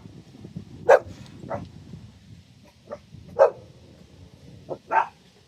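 Dog barking in short single barks, about five of them, the loudest about a second in and about three and a half seconds in.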